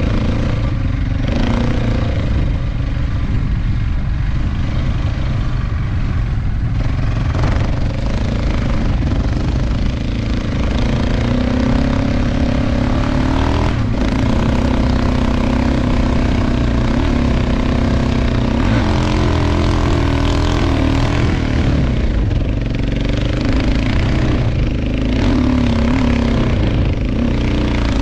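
KTM 690 Enduro's single-cylinder engine running under way, its pitch rising and falling with the throttle, over a steady low rumble of wind on the helmet microphone.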